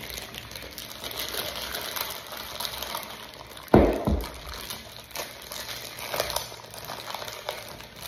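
Clear plastic wrap crinkling and rustling as it is pulled off a metal door closer body by hand, with one heavy thump about halfway through.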